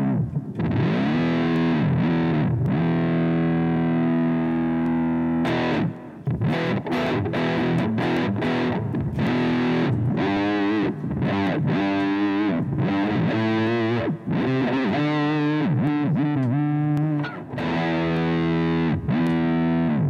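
Distorted electric guitar through a Zoom G1xOn multi-effects pedal, its expression pedal sweeping the pitch down and back up in repeated dive-bomb swoops to emulate a floating tremolo bar. From about six seconds in the notes come choppier, with fast pitch wobbles.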